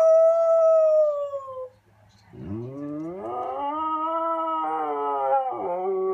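Siberian husky howling: a high howl sliding down in pitch for about a second and a half, then after a brief pause a long howl that rises and wavers.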